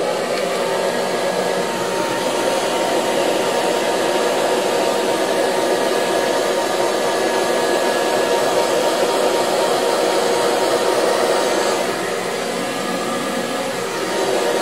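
Handheld hair dryer blowing on its cool setting, aimed at freshly applied gel on a wig's lace front to make it tacky. It runs steadily, a little quieter for a couple of seconds near the end.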